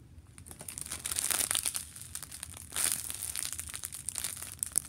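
Clear plastic packaging bag crinkling and crackling in quick, irregular bursts as the bread-loaf squishy inside it is squeezed and handled.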